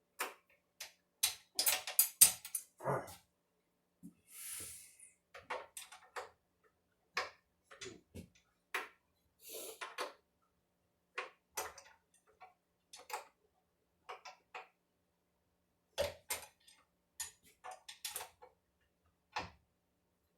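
Irregular metal clicks and knocks of wrenches working the collet nut on a 1 3/4 HP router as the bit is tightened, with two brief scraping rustles.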